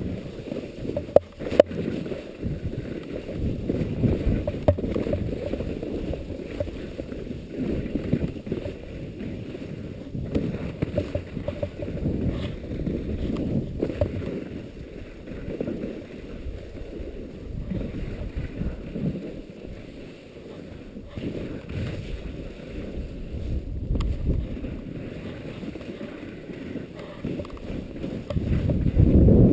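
Strong wind buffeting the action camera's microphone: an uneven, gusting low rumble, with two sharp clicks about a second and a half in.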